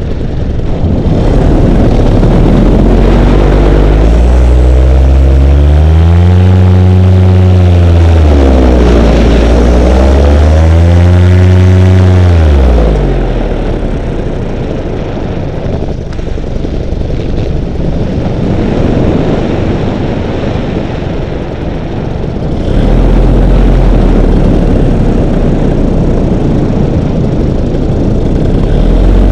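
Paramotor engine and propeller running under power, with wind noise on the microphone. The engine pitch swells up and back down twice in the first twelve seconds or so. The throttle then comes back and it runs quieter for about ten seconds before powering up again near the end.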